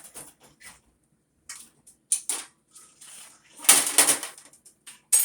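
Kitchen handling noises: a series of short, irregular clatters and scrapes of cookware and containers, loudest about four seconds in, with a sharp knock near the end.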